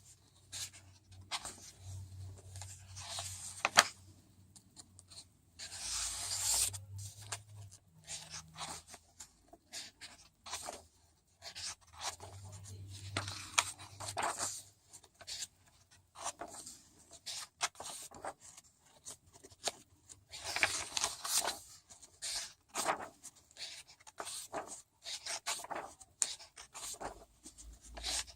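Pages of a paperback workbook being turned and handled: repeated irregular papery swishes and rustles, with a sharp click a little under four seconds in.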